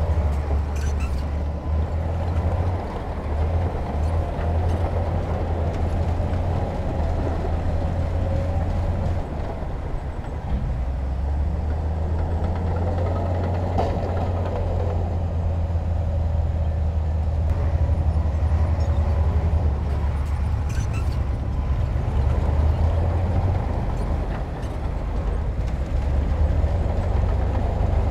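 Heavy earthmoving machinery's diesel engine running steadily under working load, with a deep rumble and a rougher clatter above it.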